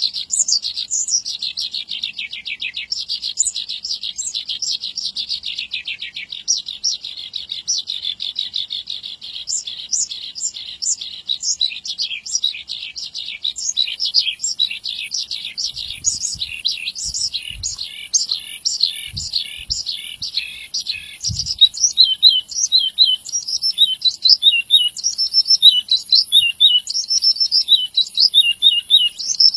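Horsfield's bushlark (branjangan) singing a long, vigorous song of rapid high notes: a fast, dense trill that gives way about two-thirds through to louder, more spaced repeated chirps.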